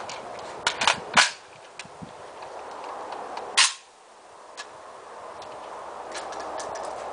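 Sharp metallic clacks from the action of a Zastava M85 PAP AK-pattern pistol handled close to the microphone: a quick group about a second in, then one loud clack about three and a half seconds in.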